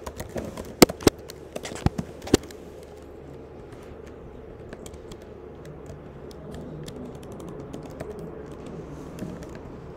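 Typing on a computer keyboard: separate keystroke clicks, a few sharp, loud ones in the first couple of seconds, then lighter, scattered keystrokes.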